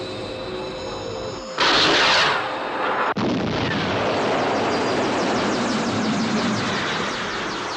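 Sky One interceptor jet sound effects: a steady whine with held tones, then about a second and a half in a sudden loud blast as the interceptor fires its missile at the UFO. After a sharp break it changes to a steady jet roar as the aircraft flies on.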